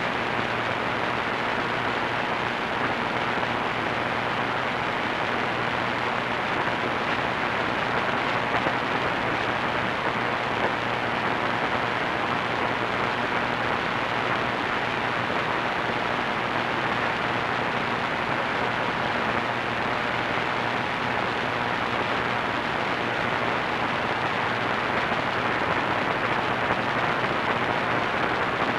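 Steady hiss and static from an AM radio receiver tuned to a distant station on 1490 AM, with no programme audible above the noise and a faint low hum underneath.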